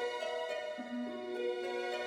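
Background music: a gentle repeating figure of held notes stepping upward, starting over about every two seconds.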